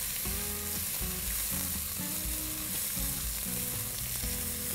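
Sliced red onions and whole spices sizzling and frying in hot ghee over a high flame, stirred with a silicone spatula in an enamelled pot. The sizzle is steady throughout.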